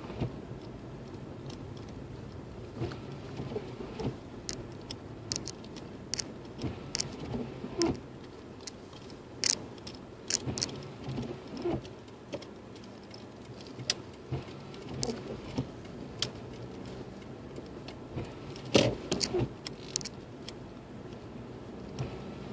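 Steady low hum of a car cabin while driving slowly, broken by many irregular sharp clicks and small knocks, with a tight cluster of them near the end.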